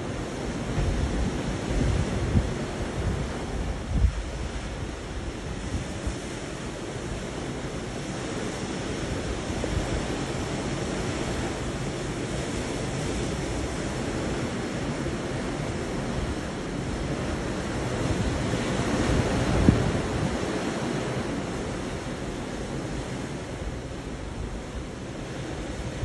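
Steady rush of the sea seen from a cruise ship, with wind buffeting the microphone in low gusts, strongest a few seconds in and again about three quarters of the way through.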